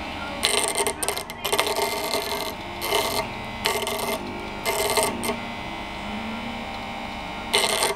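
Portable EDM broken-tap remover spark-eroding a broken drill bit in steel: the brass electrode, driven up and down by the head motor in water, crackles and buzzes in irregular bursts of about a second each, over a steadier hum from the machine.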